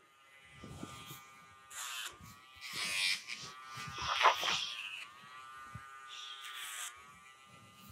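Handheld rotary nail grinder whirring as it files a puppy's toenails. Its whine dips in pitch several times, with short bursts of gritty grinding.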